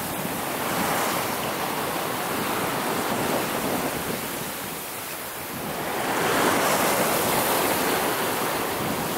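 Sea water rushing and splashing past the hull and through the wake of a sailing yacht going at about 7 knots, with wind on the microphone. The rush eases a little midway, then swells again about six seconds in.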